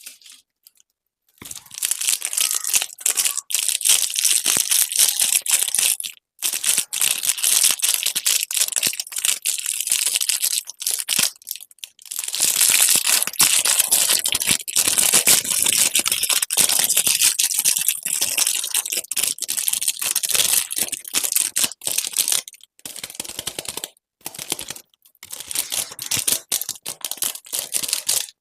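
Plastic candy wrappers crinkling and tearing open as they are handled, a dense run of crackling with brief pauses.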